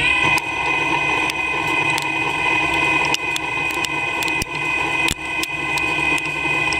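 CNC lathe running during a turning pass: a steady high whine from the spindle drive holding one pitch, with scattered sharp ticks.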